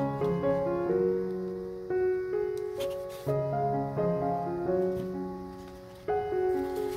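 Background piano music: a gentle tune of ringing, fading notes and chords.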